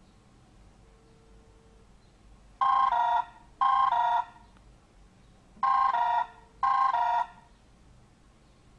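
Incoming-call ringtone on a Samsung Galaxy S2 running CyanogenMod 9: two pairs of short electronic rings, each ring a quick warble between two pitches, starting about two and a half seconds in.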